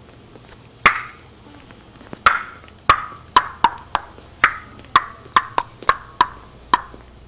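A quick, uneven run of about a dozen sharp clicking knocks, each with a short ringing tail, starting about a second in and stopping near the end.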